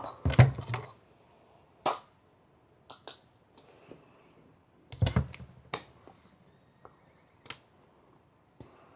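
Scattered short clicks and knocks at uneven intervals, with a louder cluster just after the start and another about five seconds in.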